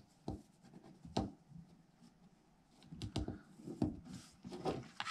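Lacrosse string rubbing and scratching as it is pulled through and tied off at the top of a plastic lacrosse head by hand, with scattered light clicks and knocks as the head is handled.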